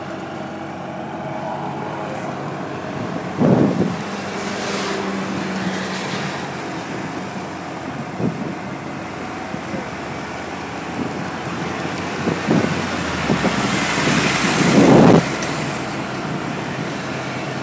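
Golf cart driving uphill: a steady motor hum and tyre noise, with a few short louder jolts, the loudest near the end.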